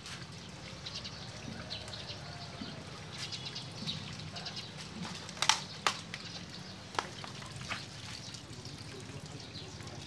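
Sparse sharp ticks and clicks, a few louder ones around the middle, over a low steady hum: a small red finch pecking at scattered seed on a concrete ledge.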